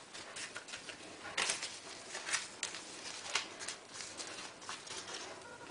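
Hands folding a strip of puff pastry on baking paper: a run of soft rustles and crinkles from the paper and pastry, with a few sharper crinkles among them.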